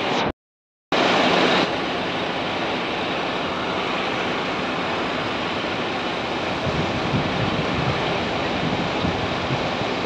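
Scania fire truck's diesel engine running while parked, heard close up as a steady, loud rush. It starts abruptly about a second in, after a brief cut-out in the sound.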